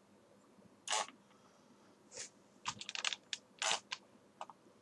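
Scattered sharp clicks of a computer mouse and keyboard being worked, about a dozen in all, with a quick run of them around three seconds in.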